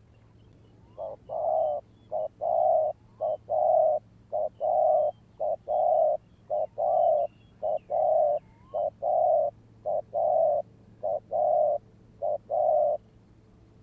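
Spotted dove cooing: a steady series of about a dozen paired coos, each a short note followed by a longer one, starting about a second in and stopping near the end.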